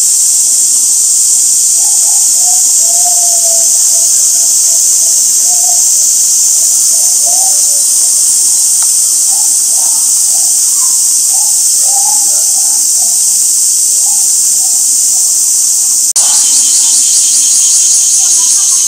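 Loud, steady high-pitched drone of a summer cicada chorus. About 16 s in it switches to a fast pulsing buzz.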